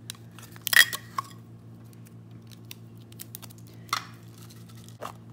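Small metal tea tin being handled and opened: a few sharp clicks and scrapes of the lid, the loudest about a second in, over a steady low hum.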